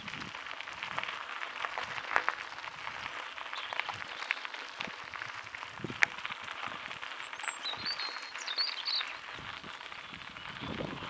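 Mountain bike tyres rolling over a dirt and gravel trail: a steady gritty rolling noise dotted with many small clicks and rattles. A bird chirps a few times in the second half.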